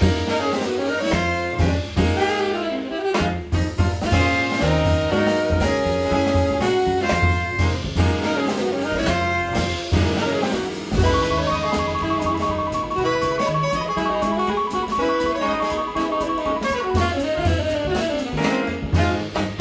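Small jazz band playing live: saxophones over piano, bass and drum kit. A little past the middle a high note repeats rapidly for several seconds.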